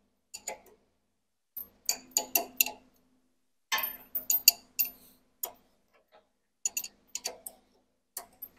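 Ratchet wrench clicking in short runs of a few quick clicks, with pauses between, as a nut is run down onto the bolt through a snowblower driveshaft's U-joint yoke.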